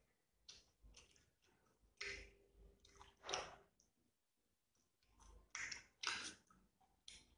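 Close-miked wet chewing of a mouthful of rice and curry eaten by hand: soft irregular mouth clicks and lip smacks, in two clusters, one a couple of seconds in and one near the end.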